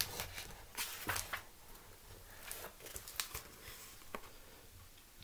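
A book's paper pages rustling as a page is turned, along with scattered soft clicks and bumps from handling the book.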